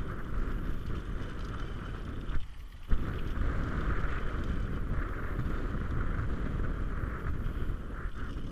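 Mountain bike descending a dry dirt trail at speed: wind buffeting the camera microphone over the steady rattle and rush of tyres and frame on the dirt. About two and a half seconds in, a brief lull ends in a single sharp thump.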